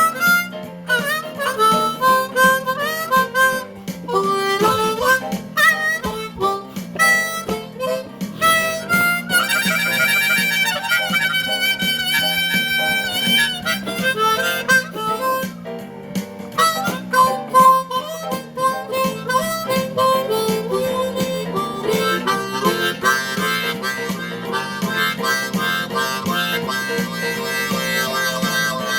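Blues harmonica playing bending melodic phrases over a steady low rhythmic accompaniment, with a long held chord about ten seconds in.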